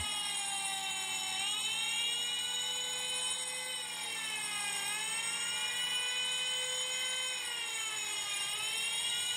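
Electronic siren on a fire-alarm panel wailing steadily, its pitch sliding slowly down and back up every few seconds. This is the general alarm of a pre-action sprinkler system, set off when both cross-zone detectors A and B have signalled.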